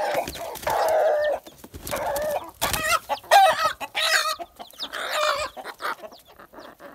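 A flock of domestic chickens and roosters clucking, short calls overlapping one after another, thinning out near the end.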